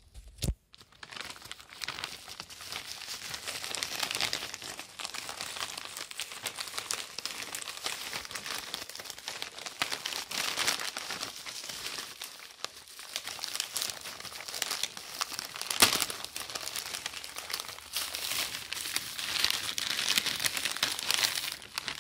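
Plastic mailer bag and its wrapping crinkling and rustling as hands dig into it and pull books out. There is a constant crackle with a few sharper snaps.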